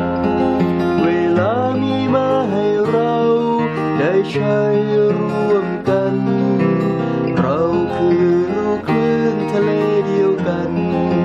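Background music: an instrumental passage of a song, with strummed acoustic guitar under a melody line that slides between notes.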